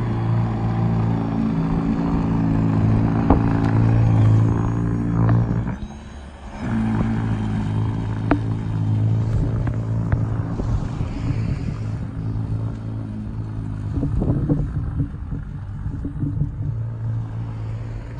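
EGO SNT2100 cordless single-stage snow blower running at full throttle through heavy, wet snow, its motor and auger giving a steady hum. The hum cuts out briefly about six seconds in and starts again, and is fainter and rougher near the end.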